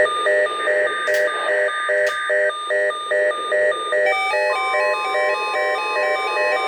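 Weather radio receiver sounding its electronic alert tone for a tornado watch. It is a rapid repeating beep, about two to three beeps a second, which changes about four seconds in to a different warbling pattern of alternating pitches.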